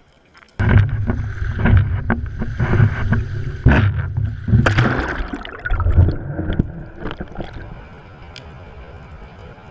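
Choppy sea waves sloshing and splashing against a camera housing at the surface, with water slapping the breakwater wall; it starts suddenly about half a second in and gives way near the end to a quieter steady underwater hiss.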